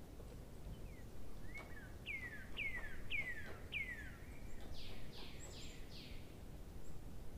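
A songbird singing: four clear whistles, each sliding down in pitch, starting about two seconds in, followed by a quick run of four higher, rougher notes. Faint clicks and a low hum lie underneath.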